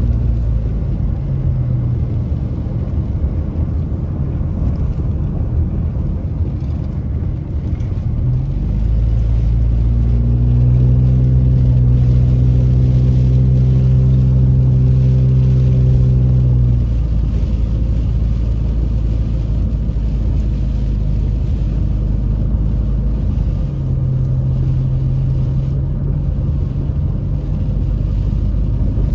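A car driving on a wet road, heard from inside the cabin: steady engine and tyre noise. A louder, steady engine drone comes in from about nine to seventeen seconds in, and again for a few seconds near the end.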